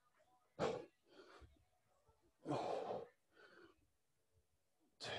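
A person breathing hard with the effort of weighted goblet squats: three forceful, airy breaths about two seconds apart, with near quiet between them.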